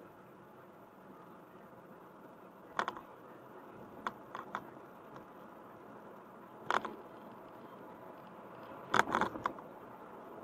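Low, steady road noise of a car being driven, broken by short sharp knocks and rattles, a few in the first half and the loudest cluster about nine seconds in.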